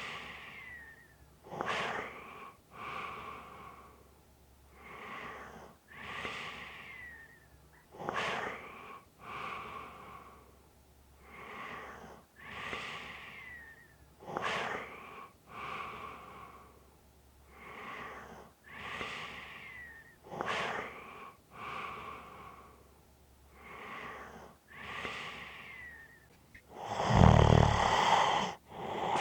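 A person snoring in a regular rhythm of breaths, some of them carrying a light whistle that falls in pitch. Near the end comes one louder, deeper snore.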